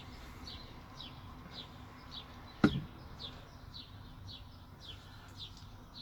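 A bird repeating a short, high, falling chirp about twice a second. A single sharp click about two and a half seconds in, the loudest sound.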